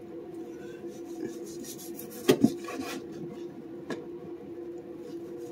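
A long kitchen knife slicing through a firm, partly frozen block of raw pork on a wooden cutting board, the blade rasping in repeated strokes. Two sharp knocks come a little after two seconds and a smaller one near four seconds, over a steady low hum.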